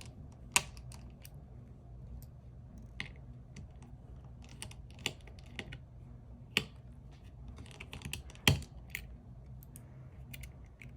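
Irregular small clicks and taps of a Y000 tri-point precision screwdriver on the tiny screws and metal bracket of an opened iPhone 7 Plus as the screws are backed out, one click louder than the rest near the end, over a faint steady low hum.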